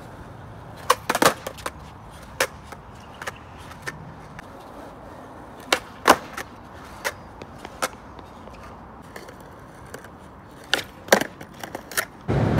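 Skateboard rolling on concrete, with a low rumble of the wheels, broken by a series of sharp clacks and slaps as the board hits the ground again and again.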